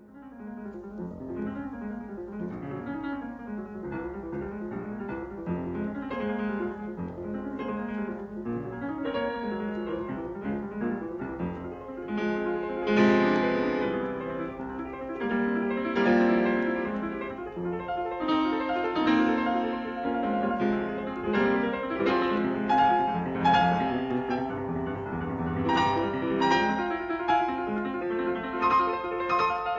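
Piano music playing, getting louder and busier about twelve seconds in.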